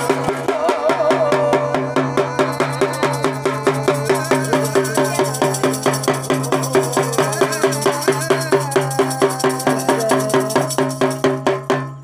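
Folk ritual percussion: a double-headed barrel drum and a hand-held brass gong struck together in a fast, even beat of about five strokes a second, over a steady low hum. It stops abruptly near the end.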